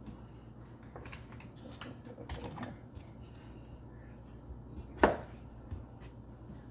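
Knife chopping ham on a cutting board: scattered short knocks of the blade on the board, with one sharp, louder knock about five seconds in.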